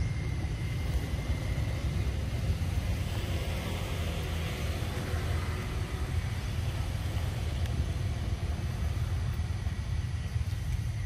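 Steady low rumble throughout, with a faint thin high tone running behind it.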